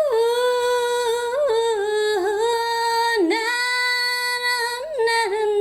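A woman singing unaccompanied, with no words: long held notes on one pitch, broken by short melodic dips and turns.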